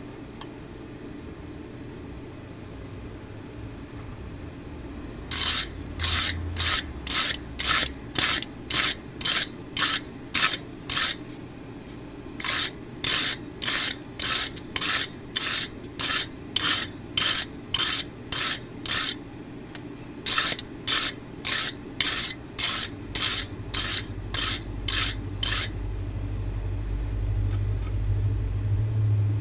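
Hand file stroked across the hardened steel tip of a center punch made from an old cold chisel: a harsh rasp on each push, in three runs of about a dozen strokes, roughly two a second. A low rumble swells near the end.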